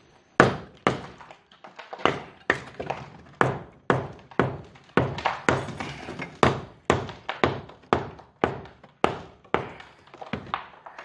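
Steady hammer blows on the masonry of a fireplace, about two a second, starting about half a second in. Each blow is a sharp knock with a short ringing tail.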